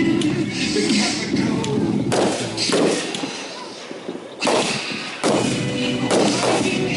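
Consumer fireworks going off: about five sharp bangs at uneven intervals of a second or two, each followed by a short echoing tail, with music playing underneath.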